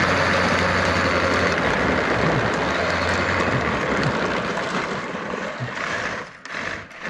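Steady rushing noise of wind and road from a moving camera, with a low rumble underneath; it drops away briefly twice near the end.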